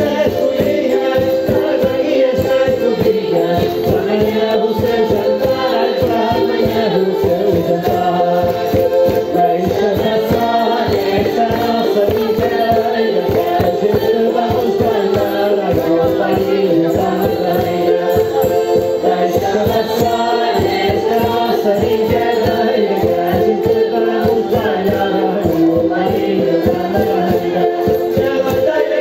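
Live Portuguese folk music for a dance: voices singing over pitched accompaniment, with a shaken rattle keeping a steady, quick beat.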